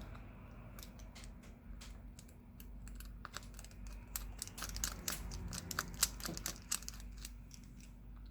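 Irregular light clicks and ticks of a small Phillips screwdriver and metal parts on a Samsung Galaxy S10 Plus's frame as the screws holding the motherboard are taken out, over a low steady hum.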